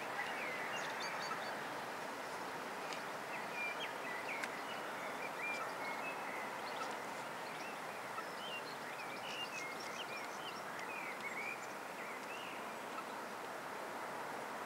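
Small birds chirping and twittering many times in short calls over a steady outdoor background hiss.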